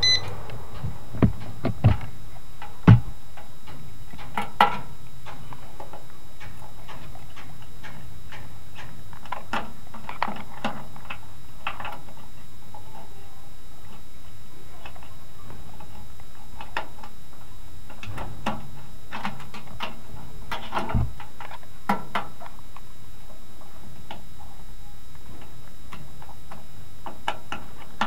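Split air conditioner indoor unit's blower fan running steadily, with a short electronic beep right at the start and scattered clicks and knocks from wires and terminal screws being handled, the loudest knock about three seconds in.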